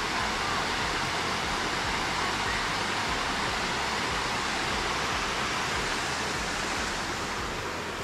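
Small rock-ledge waterfall pouring into a pool: a steady rush of falling water, easing slightly near the end.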